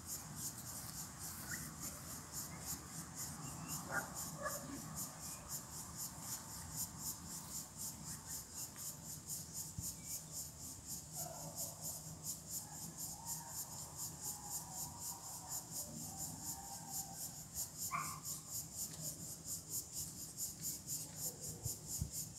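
Insects chirping in a steady high-pitched pulsing rhythm, with a couple of faint brief sounds about four and eighteen seconds in.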